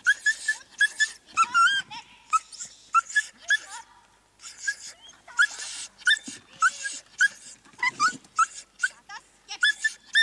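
A dog barking in rapid, high-pitched yaps, two or three a second, as it runs an agility course. There is a short lull about four seconds in.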